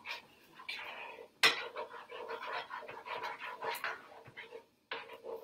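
Spatula stirring butter into a sauce in an enamelled cast-iron skillet: a run of soft, rhythmic scraping strokes, with one sharp knock against the pan about a second and a half in.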